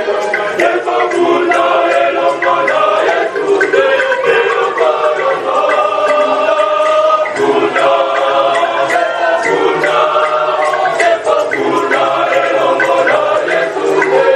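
A choir singing together in harmony, many voices at once, with short sharp beats running through the singing.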